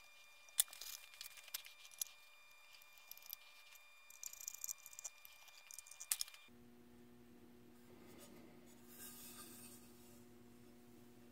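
Faint clicks and scraping of a screwdriver and a plastic snap-in power inlet against a sheet-aluminium enclosure as the inlet is fitted into its cut-out, with sharp clicks about half a second in and just after six seconds. After that only a faint steady hum and one soft scrape.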